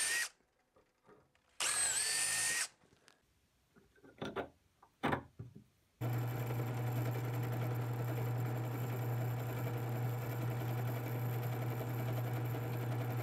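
Cordless drill runs briefly, boring a hole in a wooden strip, with a short run ending just as the sound begins and another about two seconds in; a few light knocks follow. From about six seconds in a drill press motor runs with a steady hum as its bit drills down into a hardwood strip.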